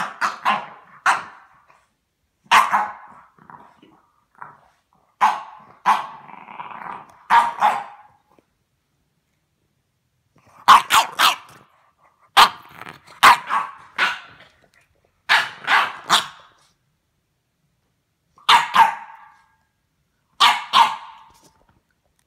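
Bulldog barking in short clusters of two or three loud barks with pauses between, and growling in between some of them.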